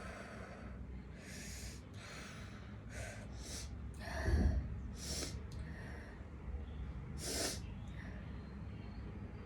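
A woman's short, sharp sniffs and gasping breaths through the nose, about seven of them spread out, the loudest about four and a half seconds in, as she tries to bring on a sneeze that does not come.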